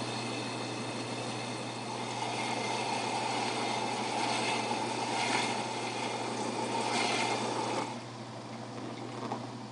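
CatGenie self-washing litter box running its cleaning cycle: a steady motor hum with a louder whirring layer that cuts off abruptly about eight seconds in.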